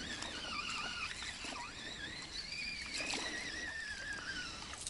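Spinning reel being cranked to bring in a small hooked fish: a wavering whine from the reel that slides down in pitch and stops shortly before the end, with faint clicks.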